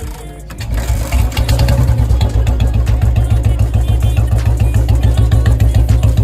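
Royal Enfield Bullet 350 single-cylinder engine, fitted with an aftermarket green CDI unit, starting up a little under a second in and then idling with an even, steady thump.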